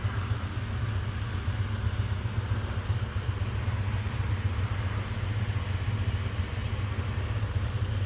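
Shop coolers running full blast: a steady, low roar that does not change.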